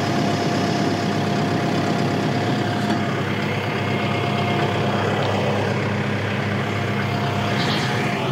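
TYM T1104 tractor's diesel engine running at a steady speed, heard from inside the cab, with a thin steady whine over it that stops near the end.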